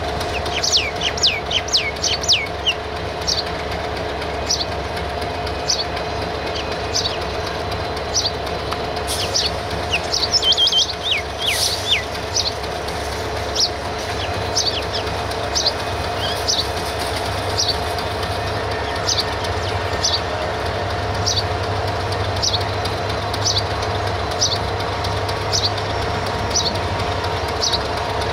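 Diesel locomotive idling with a steady low drone and hum, while a small bird chirps over it. Quick runs of falling chirps come near the start and about ten seconds in, then single chirps a little more than once a second.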